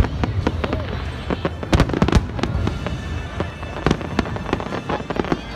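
Fireworks shells bursting, a string of sharp bangs with a dense cluster about two seconds in and another loud bang near four seconds.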